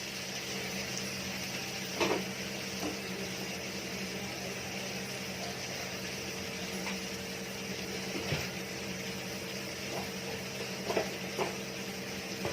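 Tomato masala frying gently on a tawa, a soft steady sizzle under a low steady hum, with a few light clicks of a spatula or utensil against the pan.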